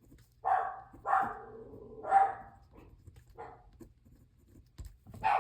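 A pet dog barking, four barks at uneven gaps over about three seconds.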